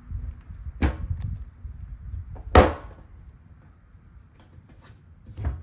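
Two knocks on a new sheet-metal fuel tank about two seconds apart, the second louder and briefly ringing, as the fuel vent and its gasket are pressed into their hole in the top of the tank.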